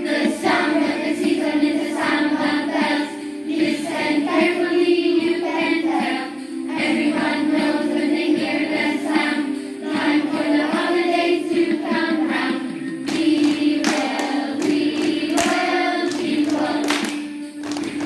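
Children's choir singing a Christmas song together over a recorded backing track, with sharp claps joining in during the second half.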